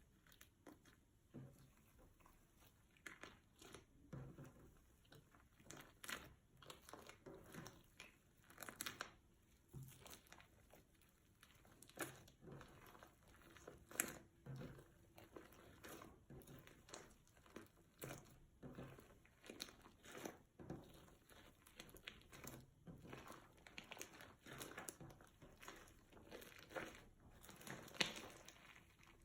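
Hands squishing and kneading fluffy slime, giving faint, irregular sticky clicks and pops.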